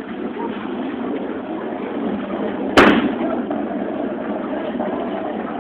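Steady bowling-alley din with one sharp bang near the middle.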